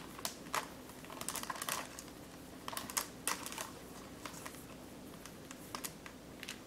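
Thin egg noodle nests being pulled apart by hand, the strands rustling and crackling lightly in irregular little clusters of ticks.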